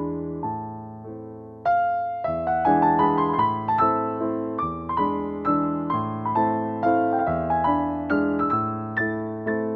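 Background piano music, notes struck one after another and fading, growing louder about two seconds in.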